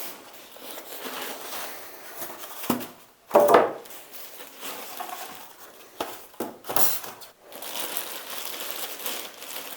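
Cardboard box and plastic wrapping of a PC case being opened and handled: irregular crinkling and rustling with a few knocks.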